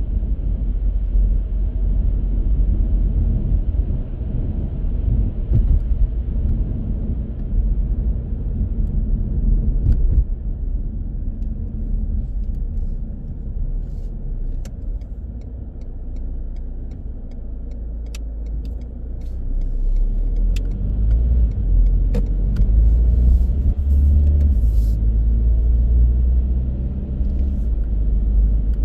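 Car driving: a steady low rumble of engine and tyres on the road, easing off a little midway and building again, with a few faint ticks.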